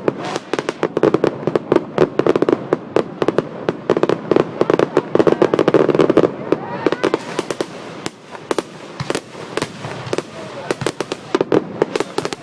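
Consumer fireworks crackling: a dense, rapid barrage of small pops and bangs, which thins somewhat after about eight seconds.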